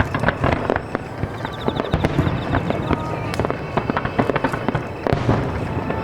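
Starmine fireworks barrage: many shells bursting in quick, irregular, overlapping succession, with sharp cracks and booms.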